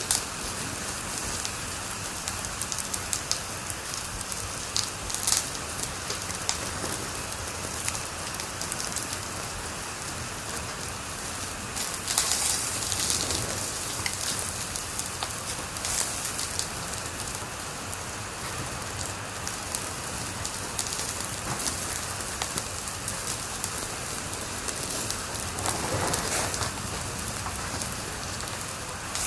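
Wood fire crackling in a fireplace: a steady hiss with scattered sharp pops and snaps, with a denser flurry of crackles about twelve seconds in and another swell near the end.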